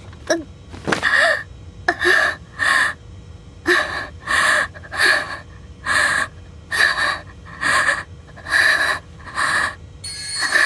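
A girl breathing heavily and laboriously, struggling for air: a quick breath about every three-quarters of a second, with a few small voiced gasps in the first seconds.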